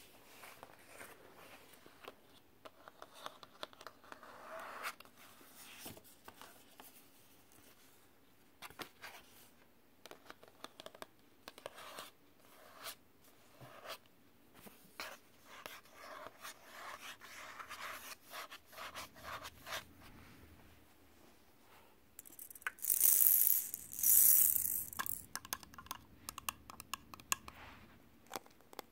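Fingernails scratching and tapping on a glitter-covered paper greeting card, in many short strokes. Two louder, hissy rustles come about three-quarters of the way through.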